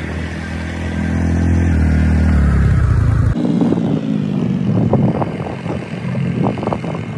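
Motorcycle engine running under way, a steady hum that grows louder. About three seconds in it cuts off abruptly, giving way to wind buffeting the microphone over a fainter engine.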